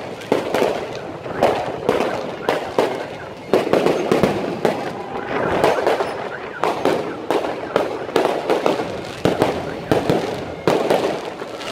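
Aerial fireworks bursting overhead: an irregular string of sharp bangs and crackles, about two a second, with no let-up.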